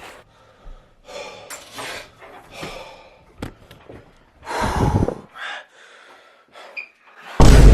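A person's breathy gasps and snorts in short noisy bursts, the loudest about five seconds in. Music starts abruptly near the end.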